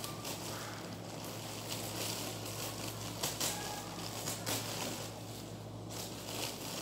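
Fresh mint stems and leaves rustling and crackling as they are pulled apart and sorted by hand, with a couple of sharper snaps about three seconds in, over a steady low hum.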